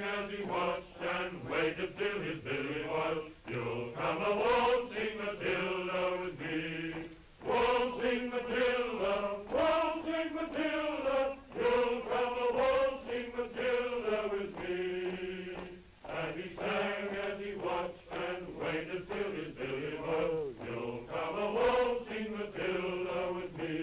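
A group of men singing together in a chant-like unison, with held notes that slide from one to the next and no instruments or beat.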